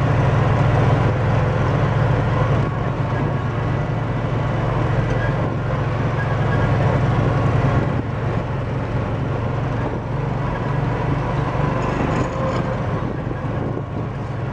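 Vehicle engine running steadily while driving, a low hum over a constant rumbling noise.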